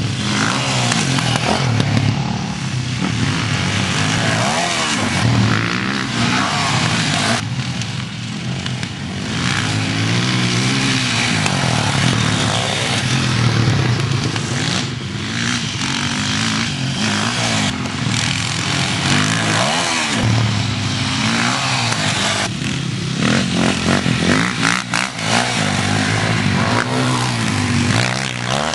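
Enduro dirt bike engines revving, the pitch rising and falling over and over as the riders accelerate and ease off.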